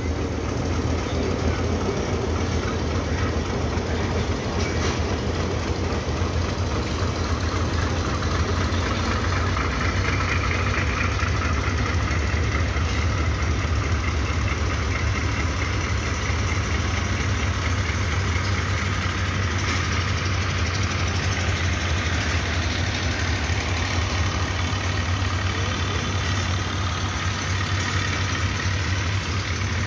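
Diesel-hauled passenger train pulling slowly out of the station, its coaches rolling past with a steady low engine rumble. Faint high-pitched tones join in about ten seconds in.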